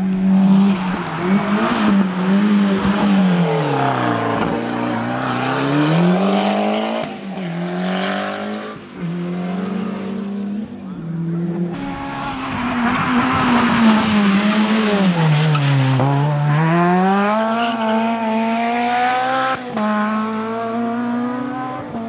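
Rally car engines revving hard. The engine note falls and then climbs back up as a car slows and accelerates through the gears. This happens twice: a second run starts about twelve seconds in, with gear changes near the end.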